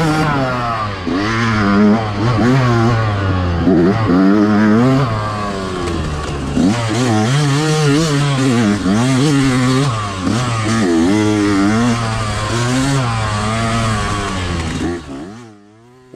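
Yamaha two-stroke dirt bike engine revving up and down over and over as the throttle is worked, heard up close from a helmet-mounted camera. The engine sound fades out near the end.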